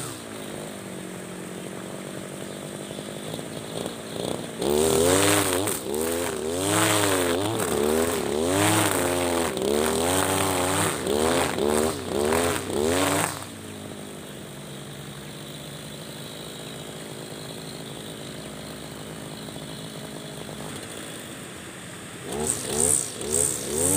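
Husqvarna 542RBS 42 cc two-stroke backpack brush cutter with square nylon trimmer line cutting tall grass. The engine runs steadily at first, then is revved up and down over and over for about nine seconds, settles back to a steady lower speed, and revs again near the end.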